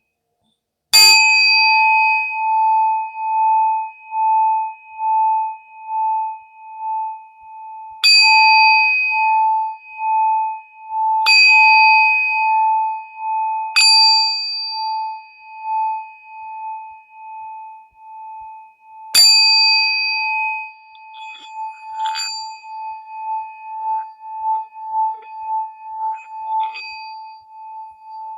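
Metal singing bowl struck five times, each strike ringing on in a long, pulsing hum. Softer, irregular taps keep the tone going near the end.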